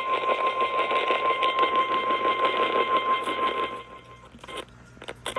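NOAA Weather Radio warning alarm tone, a steady 1050 Hz beep over a hiss of radio static, cutting off about three and a half seconds in. A few faint crackles follow.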